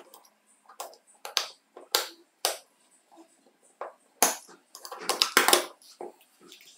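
Steel snap-ring pliers clicking and scraping against the metal retaining ring and end plate of a cordless impact driver's gear housing: a series of sharp metallic clicks and scrapes, busiest about four to five and a half seconds in, with parts knocked against a wooden workbench.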